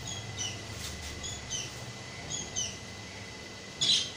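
Small birds chirping in short, repeated chirps a few times a second, with one louder chirp near the end, over a faint steady hum.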